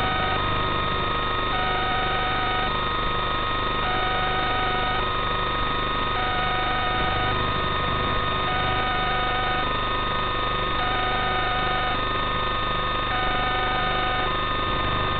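Steady electronic hum and hiss made of several fixed tones, with a two-note beep alternating over it, each note lasting about a second.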